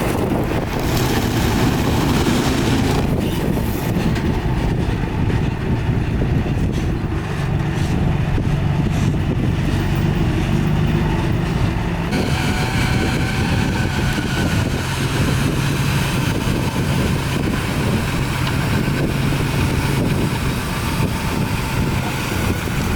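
Heavy diesel engine of earthmoving machinery running steadily under load. About halfway through, a higher whine and rattle join the engine drone.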